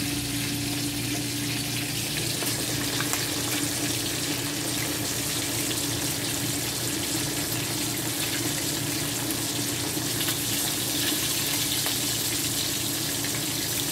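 Oil sizzling steadily around pompano pieces shallow-frying in a pan, with fine crackling throughout.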